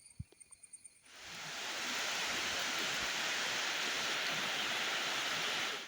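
A steady rushing noise, like falling water, that fades in about a second in and cuts off abruptly at the end, with faint insect chirring before it starts.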